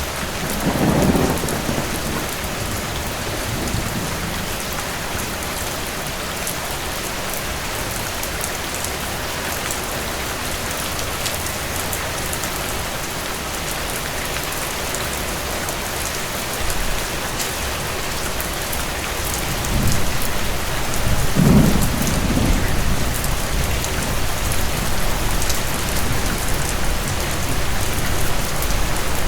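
Steady rain falling, with rolls of distant thunder: a short rumble about a second in and a longer, louder one about twenty seconds in.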